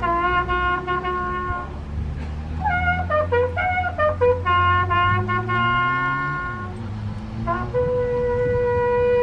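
Solo bugle playing a slow military call of held notes with a few quick notes in the middle, ending on a long held note near the end.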